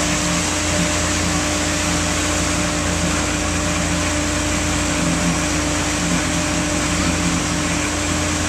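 Motorboat engine running steadily at towing speed, a constant drone mixed with the rush of the churning wake water.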